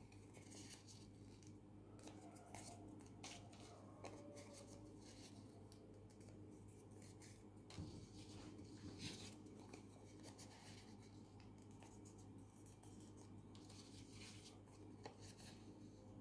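Faint rustling and crinkling of small paper circles being folded in half and creased by hand, over a low steady hum.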